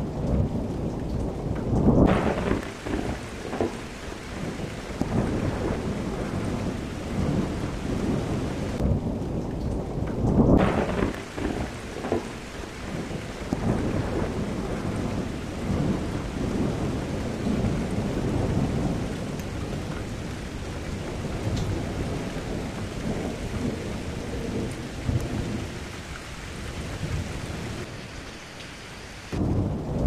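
Thunderstorm: steady rain with low, rolling thunder under it. The thunder swells louder about two seconds in and again around ten seconds in.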